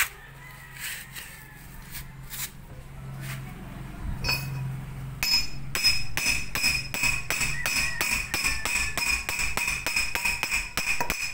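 Ratchet wrench clicking in a fast, even run, about four or five clicks a second with a metallic ring, as a brake caliper bolt is turned; a few single clicks come first.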